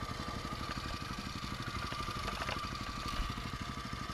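A vehicle engine idling steadily, its exhaust pulsing evenly, with a thin steady whine above it.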